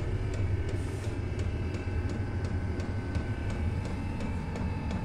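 Chinese diesel air heater running on a low setting, with a steady combustion rumble and fan whine. Its fuel dosing pump ticks evenly, about three times a second.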